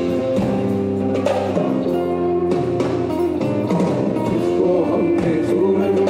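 Live folk-rock fusion band playing: guitars held over bass and drum kit, with a voice singing over the band from about midway.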